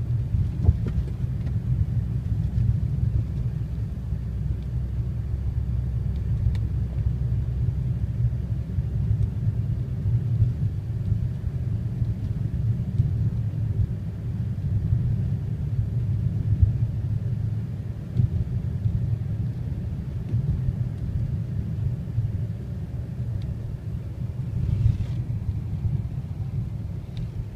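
Steady low rumble of a car driving along a snow-covered road, heard from inside the cabin: engine and tyre noise with a few faint ticks.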